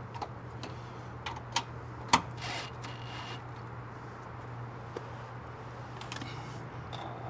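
Hand work with bolts and a cordless impact driver at a trailer-frame bracket: a few sharp clicks and clinks, the loudest about two seconds in, with short rustles, over a steady low hum.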